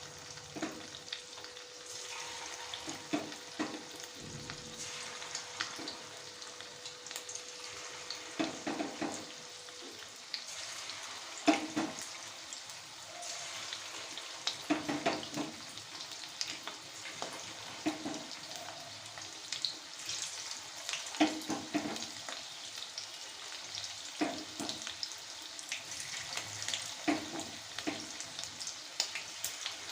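Marinated chicken pieces frying in hot oil in a kadai: a steady sizzling hiss with frequent sharp crackles and pops.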